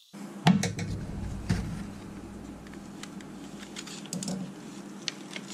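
Hands handling a car instrument cluster's circuit board and plastic housing: a few sharp clicks and light knocks, the loudest about half a second in, with softer rubbing and tapping after it.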